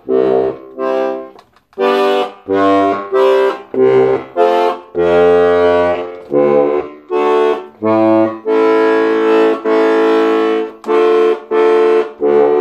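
Melodija Slovenka button box accordion sounding one button after another: short separate reedy notes with brief gaps, some with a low bass note under them, and a few longer held chords about two-thirds of the way in.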